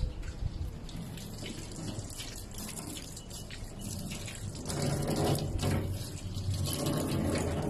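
Tap water running from a wall faucet into a stone sink and splashing over a dog being hand-washed, getting louder a little over halfway through.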